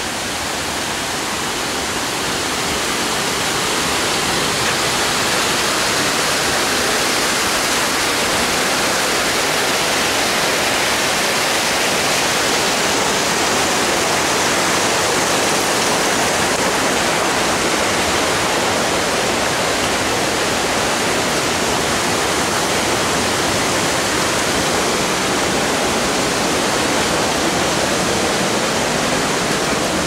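Steady rush of water from a waterfall and its stream, a continuous hiss with no breaks. It grows slightly louder over the first few seconds, then holds even.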